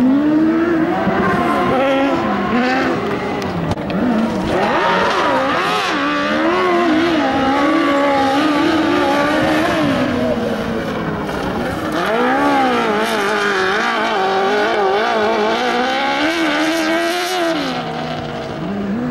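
Single-seat off-road racing buggy's engine revving hard on a dirt course, its pitch rising and falling again and again as the driver accelerates and lifts through the turns.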